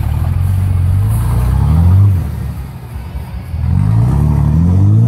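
Dodge Ram pickup's diesel engine accelerating hard away from a standstill: the pitch climbs for about two seconds, drops back at a gear change, then climbs again in a second pull. The truck is running rich enough to trail black smoke, which the onlooker takes for a tune in need of improvement.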